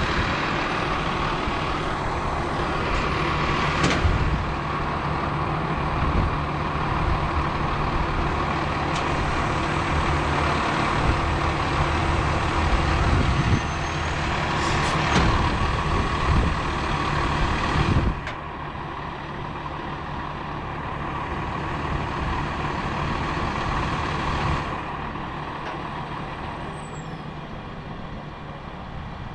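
Crane truck's engine running steadily under load while the crane hoists, with two short sharp sounds about four and fifteen seconds in; about eighteen seconds in the engine drops to a quieter run.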